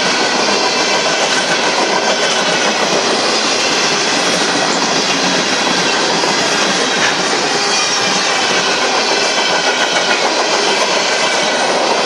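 Union Pacific freight train of empty intermodal flatcars rolling steadily past, its wheels rumbling and clattering over the rail.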